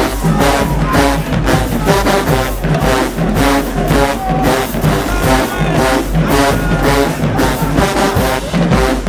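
HBCU marching band playing loud: a brass section over a drumline keeping a steady beat.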